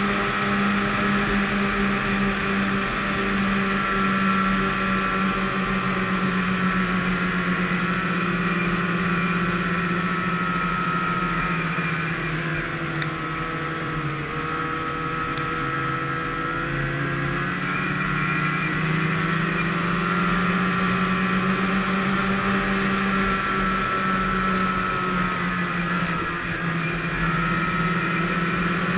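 Snowmobile engine running steadily at trail-cruising speed. Its pitch dips about halfway through as the throttle eases, then rises again.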